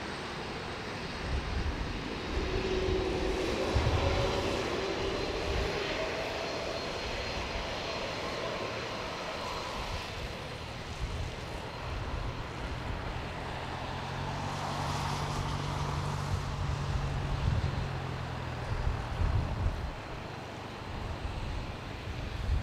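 Boeing 767-300F freighter's General Electric CF6 turbofans running as the jet rolls out and slows along a wet runway after landing: a steady jet rumble, with an engine whine that shifts in pitch during the first several seconds.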